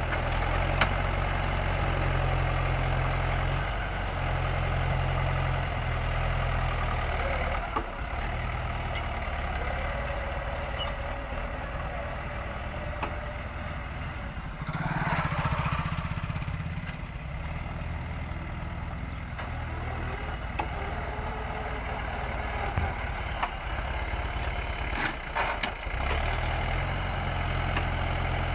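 Terex TLB 740S backhoe loader's diesel engine running while it digs and loads soil, its level stepping up and down under hydraulic load. There is a brief hiss about halfway through.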